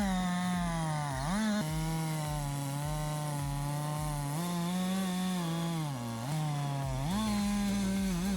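Two-stroke chainsaw running at high revs while cutting wood. Its engine note dips under load about a second in and again around six seconds in, then climbs back each time.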